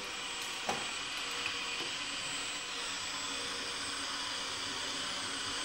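Electric drill steadily running the crank of a Vevor SD-002 wire stripping machine as a cable is fed through its rollers and blade to strip the outer sheath. The test shows the blade set too low, so it is chopping small shreds off the cable.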